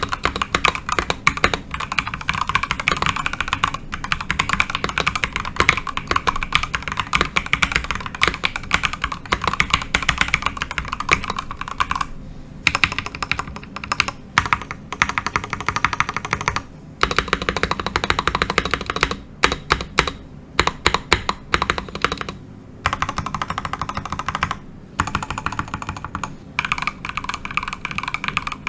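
Fast typing on a NextTime X75 gasket-mount mechanical keyboard in its stock, untaped state, with Gateron Oil King linear switches and PBT double-shot keycaps. It is a continuous stream of rapid keystrokes in runs of a few seconds, broken by brief pauses.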